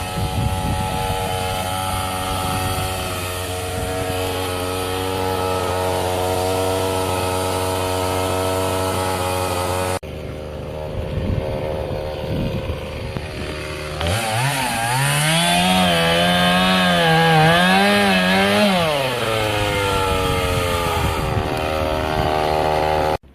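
Chainsaw engine running steadily, then revving up and down for several seconds as it cuts wood. The sound changes abruptly twice, at about ten seconds and again just before the end.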